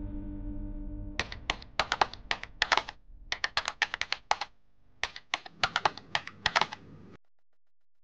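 Keys being typed in three quick, irregular runs of sharp clicks, as a held musical tone fades out at the start.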